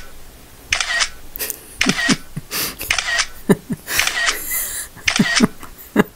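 Phone camera shutter sound clicking over and over in quick, uneven succession, about a dozen shots.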